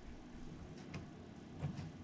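Faint clicks of the plastic finger joints on a Lego Infinity Gauntlet being moved into a pose: a weak tick about a second in and a slightly louder one near the end.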